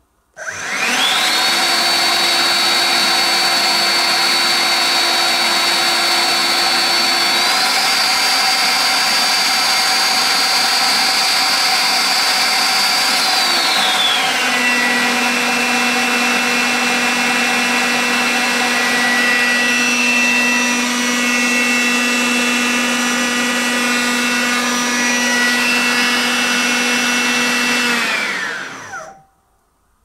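Makita CL282FD 18V cordless stick vacuum with a brushless motor, switched on and running with a steady high whine. The pitch steps up slightly about 7 seconds in, then drops to a lower note about 14 seconds in as it goes to standard (15 W) mode. It is switched off near the end and winds down.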